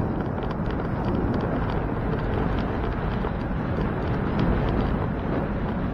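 Wind rushing over the microphone of a bike-mounted camera while riding, with a steady low rumble and scattered light clicks.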